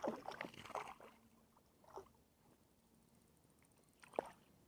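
A hooked trout thrashing and splashing at the water's surface while being reeled in, busiest in the first second, then quieter with one louder splash near the end.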